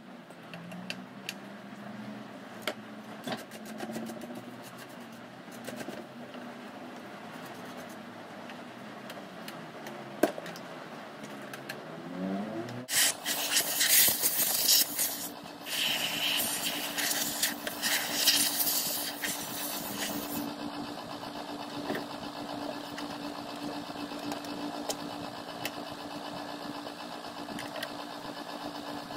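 Light clicks and handling of metal console parts. About 13 seconds in, a motor starts and keeps running with a steady hum, under a loud rushing noise that lasts about seven seconds.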